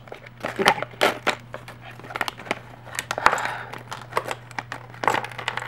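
A plastic toy blind bag crinkling and rustling in the hands as it is handled and opened, a string of sharp crackles.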